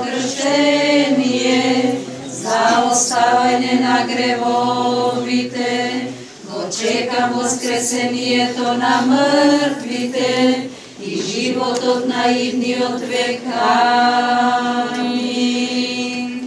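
Voices singing an Orthodox liturgical chant a cappella, in four long phrases of held notes over a lower sustained note.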